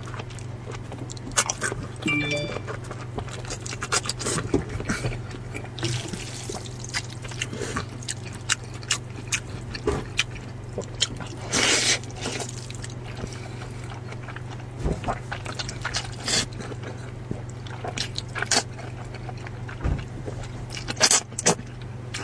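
Close-up eating sounds: crunchy bites and wet chewing of a raw green vegetable, then a long slurp of noodles about twelve seconds in, followed by more chewing clicks.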